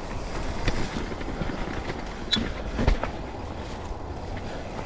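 Mountain bike rolling down a wet, muddy dirt trail: a steady rumble of tyres on the trail, with a few sharp knocks and rattles from the bike.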